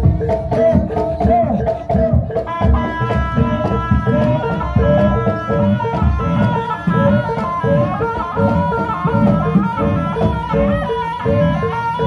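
Live Javanese jaranan gamelan music: hand-drum (kendang) strokes with bending pitch under a repeating gong-chime note pattern, and from about two and a half seconds in a reed-pipe melody (slompret) joins and carries the tune.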